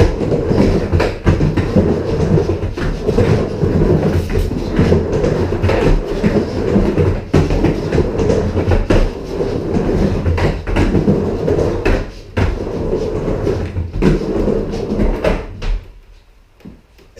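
Skateboard wheels rolling back and forth on a wooden micro mini half-pipe, a continuous rumble broken by sharp clacks and knocks of the board and trucks hitting the ramp. The rumble dies away about a second before the end.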